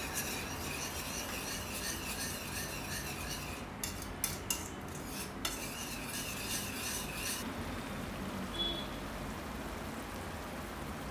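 A whisk stirring a thick tomato-and-curd gravy in a pan over the heat, with a soft sizzle underneath and a few light knocks against the pan about four to five seconds in. The whisking stops about seven seconds in, leaving only the gentle cooking sound.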